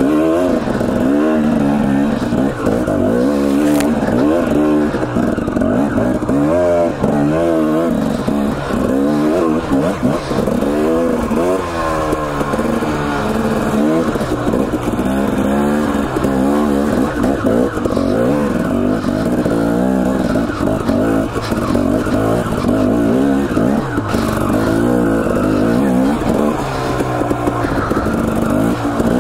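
Husqvarna TE 250 two-stroke dirt bike engine being ridden through technical single track, the revs rising and falling constantly, several times in a few seconds, with the rider's throttle changes.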